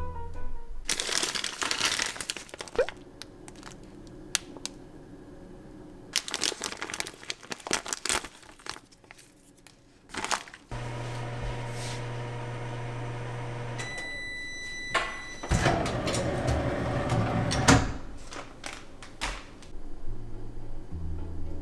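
A plastic food bag crinkling as it is handled, then a microwave oven running with a steady hum for about three seconds, which ends in a few beeps. More rustling and knocks of the packaging follow, with background music coming back near the end.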